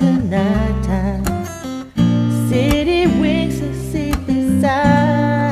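Karaoke backing track playing a pop-ballad instrumental, with a plucked guitar-like accompaniment over sustained bass notes and a melody line that bends in pitch.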